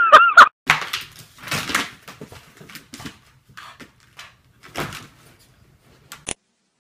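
Plastic laundry basket knocking, rattling and scraping on carpet as a bulldog puppy inside it shoves it about and tips it over, an irregular run of knocks and rustles ending in a sharp knock a little after 6 seconds. A short high wavering call is heard in the first half second.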